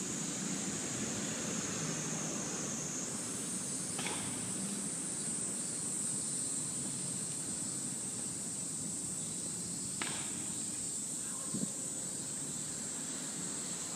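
Steady outdoor city ambience: an even background hum with a high, steady hiss, and a couple of faint ticks about four and ten seconds in.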